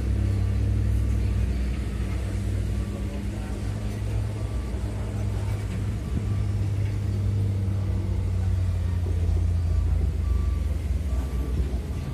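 Steady low engine rumble of heavy machinery, with faint short high beeps repeating in the second half, like a reversing alarm.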